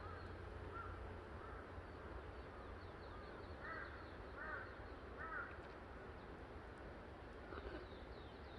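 A bird giving a few short calls, in a group of three or four about halfway through and once more near the end, over a faint steady outdoor background.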